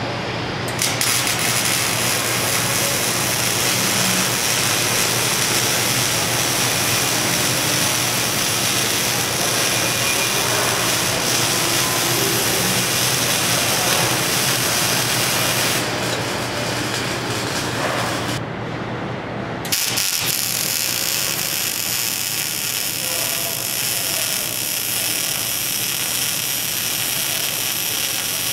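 Welding arc laying a bead on a bracket: a steady crackling hiss, with a break of a couple of seconds about two-thirds of the way through before the weld starts again.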